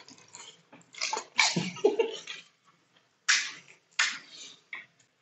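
Pani puri being eaten: several sharp bursts of crunching and slurping as the crisp, water-filled puri shells are bitten, with short gaps between them.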